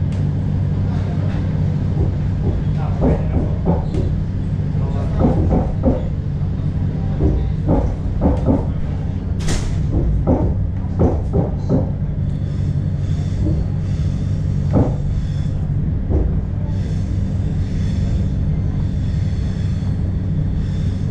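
Steady low rumble and hum inside a moving passenger railway carriage, with indistinct voices of people talking during the first half and a single sharp click about halfway through.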